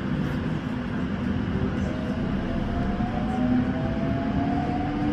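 JR Central 313 series electric train running, a steady rumble of wheels on rails with the traction motor whine rising gently in pitch from about two seconds in as the train picks up speed.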